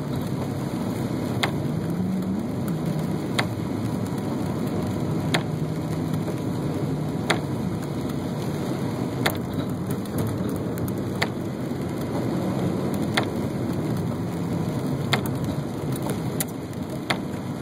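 Car cabin sound while driving in the rain: a steady hiss of rain and tyres on the wet road over the low hum of the engine. A sharp click repeats about every two seconds.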